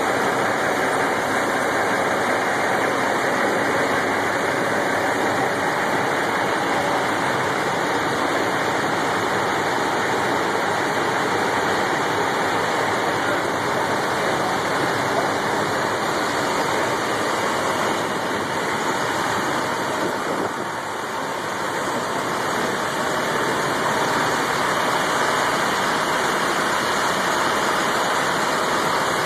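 Steady rushing noise of idling tow trucks, with a brief dip in level about twenty seconds in.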